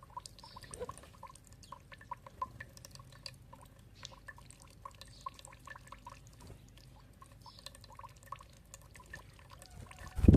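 Water dripping and trickling, many small drops plinking in quick irregular succession, with a loud low thump near the end.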